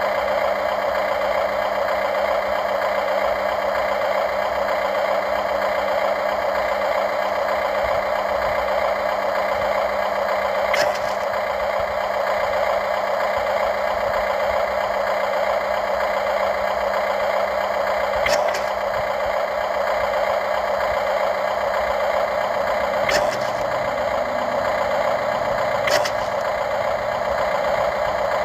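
Radio-controlled excavator running with a steady mechanical drone, broken four times by a short sharp click.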